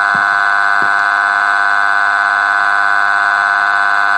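A text-to-speech voice holding one long synthetic "aaaa" at a single unchanging pitch, a loud, steady buzzing drone: a distraught cartoon character's wail delivered by speech synthesis.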